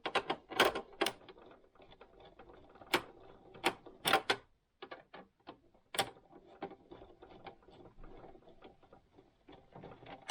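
Irregular sharp clicks, taps and knocks as tools and hands work on a Singer Advance 7422 sewing machine's casing to take it apart. The clicks are uneven in loudness, with a handful of louder snaps among many faint ones.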